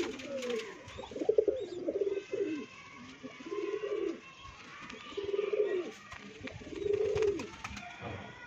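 Domestic pigeons cooing over and over, a string of low rolling coos about a second apart.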